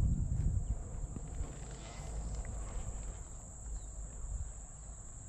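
Steady high-pitched trilling of crickets, with a low rumble of bow handling fading out in the first half second as the bow is raised and drawn.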